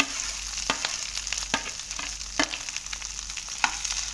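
Mashed boiled potatoes sizzling in hot oil in a kadai while a spatula stirs them, with a steady frying hiss and several sharp knocks and scrapes of the spatula against the pan.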